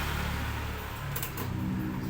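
A steady low mechanical hum, with two light clicks a little after a second in.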